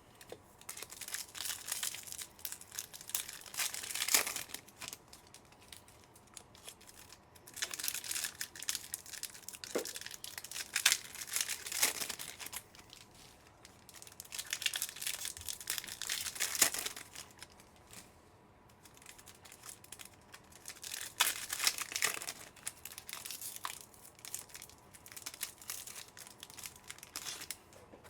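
Foil wrappers of Panini Phoenix football card packs being torn open and crinkled by hand, in about five bouts of crackling with short pauses between them.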